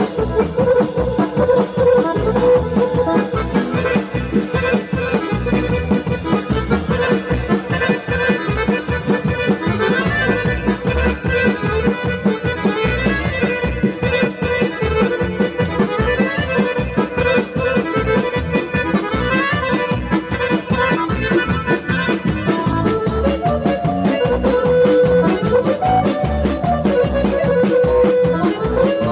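Live band playing traditional folk dance music for a circle dance: an accordion-like lead melody over a fast, steady beat. A bright, high ticking joins about three-quarters of the way in.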